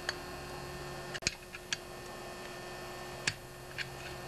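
A handful of short metallic clicks and ticks as a screwdriver works the flywheel key out of a Tecumseh lawnmower engine's crankshaft keyway, over a steady electrical hum.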